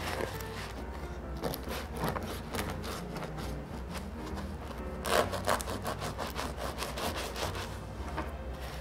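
Knife sawing back and forth through a thick slab of soft white bread, scoring it into cubes, with a louder run of strokes about five seconds in.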